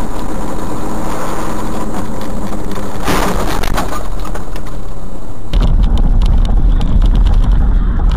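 Dashcam audio from inside a moving car: steady road and engine noise, with a brief louder burst about three seconds in, turning to a heavier low rumble with many short clicks about five and a half seconds in.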